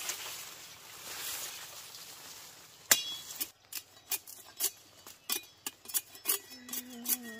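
Soft rustling, then a sharp click about three seconds in, followed by a run of irregular sharp clicks and knocks, roughly two a second. A short low voice-like call sounds near the end.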